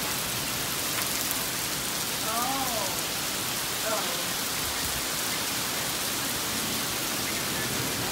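Heavy rain falling steadily on wet asphalt pavement.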